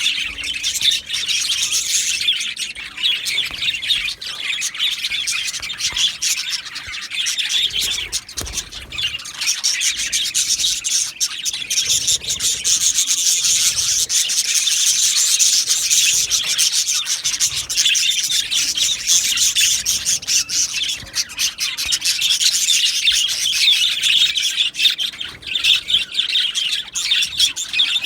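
A flock of budgerigars chirping and chattering together, a dense, continuous high-pitched warble with constant fine clicks and squeaks.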